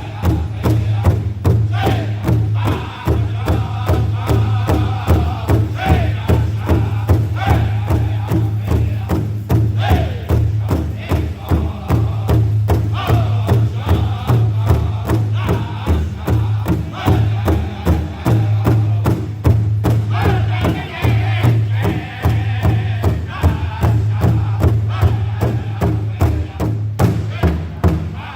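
Powwow drum group singing together in chant-like song over a large shared drum struck in a steady, even beat.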